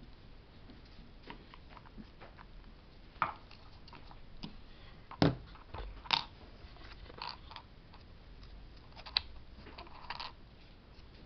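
Hard plastic clicks and knocks from an action camera and its plastic clamp mount being handled and fitted together, scattered and irregular, with one sharp knock about five seconds in the loudest.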